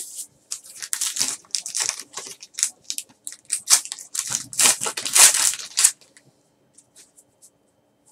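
A trading-card pack wrapper being torn open and crinkled by hand: a run of crackling rustles, loudest about five seconds in, that stops about six seconds in.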